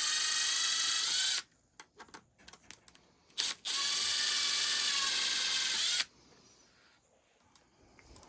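Small electric power driver running in two steady whirring runs, the first stopping about a second and a half in and the second lasting about two and a half seconds, with small clicks between. It is spinning a bolt that is already free of its locking nut but won't pop up out of the part.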